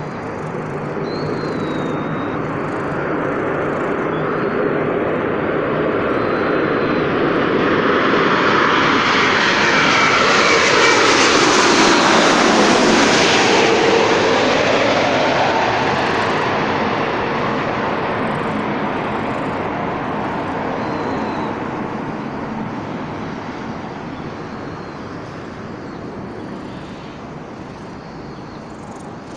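Aircraft flying over: a steady engine noise that slowly swells, peaks about halfway through, then fades away.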